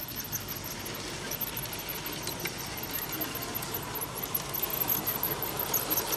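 LGB G-scale model train, a diesel locomotive pulling freight wagons, running along outdoor garden track: wheels rolling and clicking on the rails, growing louder as it approaches. A repeating high-pitched chirping runs underneath.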